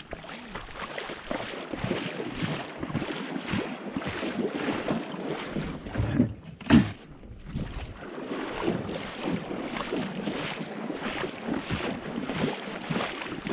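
Water splashing and sloshing with wind buffeting the microphone, as a seine net is hauled through shallow water, with one short loud knock about seven seconds in.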